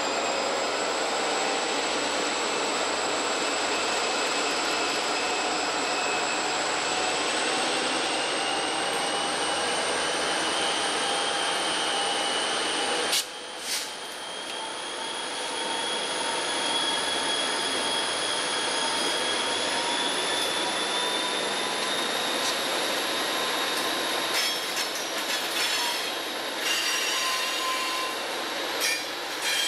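EMD diesel locomotives hauling a loaded coal train under heavy throttle, engines running hard, with steady high-pitched squealing tones over the noise. About 13 seconds in the sound drops suddenly, then carries on as the train draws away, with scattered clicks near the end.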